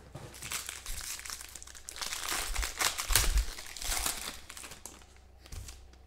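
Gold foil wrapper of a trading-card pack being torn open and crumpled by hand. It crinkles in irregular bursts, loudest in the middle, then dies down near the end.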